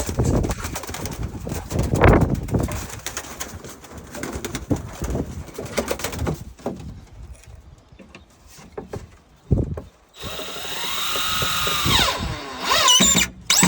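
Pigeons cooing, with knocks and rustling from handling. Near the end a power drill runs for about two seconds driving a screw, its pitch rising and then falling.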